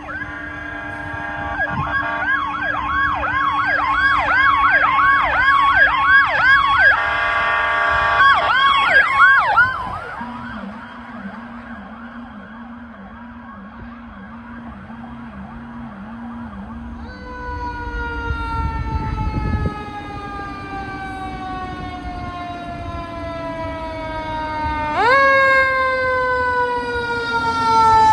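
Fire apparatus electronic sirens. First comes a fast yelp of rapid rising-and-falling sweeps, with steady horn honks over it about seven to nine seconds in, and it fades around ten seconds. From about seventeen seconds a powercall tone follows: a long wail that slowly falls in pitch like a winding-down mechanical siren, then jumps sharply back up about 25 seconds in.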